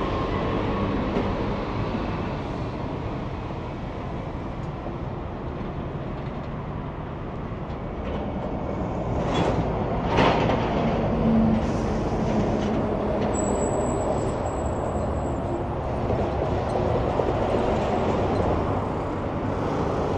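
Heavy vehicles rumbling past close by, a steady low roar that swells about nine seconds in. A couple of sharp knocks come about nine to ten seconds in, and a faint high whine follows a few seconds later.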